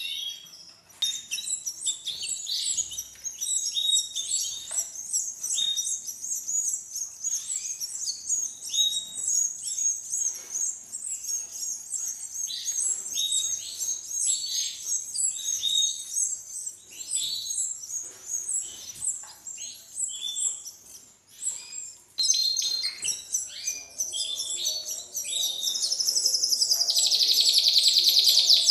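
Canary chicks about 20 days old begging with fast, high, repeated chirps as the female canary feeds them. Near the end the calls run together into a quicker, louder buzzing chatter.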